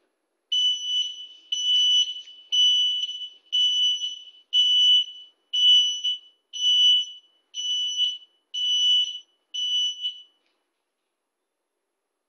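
Electronic beeper sounding ten short, high-pitched beeps, about one a second, then stopping.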